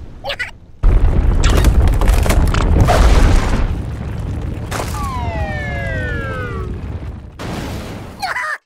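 Cartoon sound effects: a loud, deep rumbling crash as the ground cracks open, then, about five seconds in, a whistle sliding steadily down in pitch for nearly two seconds, the classic falling sound.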